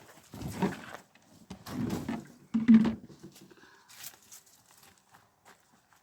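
An animal calling three times in quick succession, each call short and pitched, followed by a few faint clicks.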